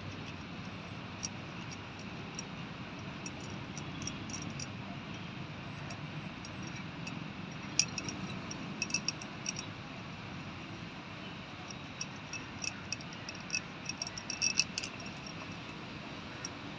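Small metal hand grater scraping and clicking against a metal plate as nuts are grated by hand, in scattered light metallic clicks, a sharp one about halfway through and a cluster near the end, over a steady low background hiss.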